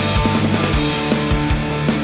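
Background rock music with a steady, driving drum beat.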